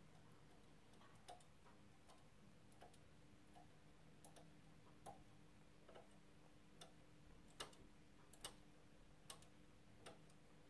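Faint, sharp clicks of the metal needles on a knitting machine's needle bed as yarn is wrapped by hand around each needle in turn, about one click a second, during an e-wrap cast-on.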